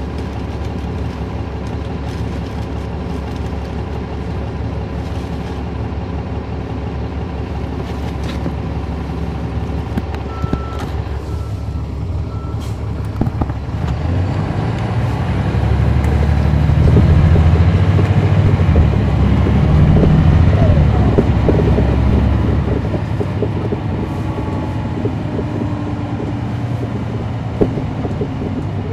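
Caterpillar C13 ACERT diesel engine of a NABI 40-SFW transit bus, heard inside the cabin from the rear seats, running steadily, then growing louder for several seconds past the middle before settling back. Three short high beeps sound about ten seconds in.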